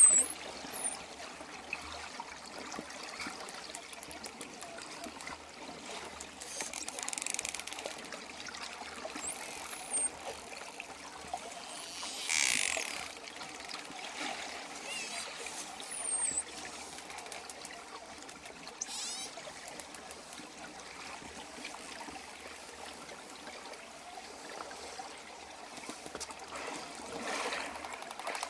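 Dolphin whistles and click trains over a steady wash of water: a few short, high whistles that rise and fall, and now and then a run of rapid clicks.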